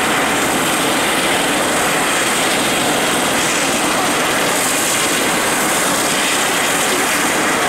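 Eurocopter EC120 Colibri helicopter idling on the ground, its turboshaft engine running and main rotor turning, giving a loud, steady noise.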